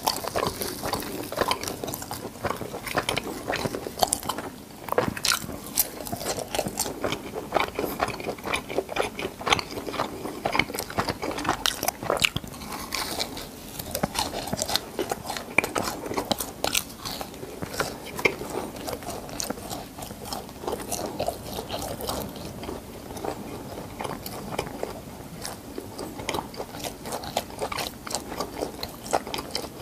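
Crispy fried cheese balls being torn apart, bitten and chewed close to a clip-on microphone: a steady run of sharp crunches of the crust and chewing, densest in the first half.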